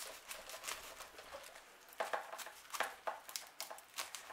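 Irregular crisp clicks and scratches of a knife cutting into a Cymbidium orchid's pseudobulb, with the plant being handled. A louder cluster of scratches comes about two seconds in.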